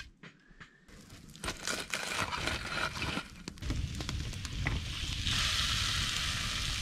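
Trout laid on a hot cast-iron griddle over campfire coals, sizzling. There are crackling and clicks from about a second in, and a louder steady sizzle starts about five seconds in.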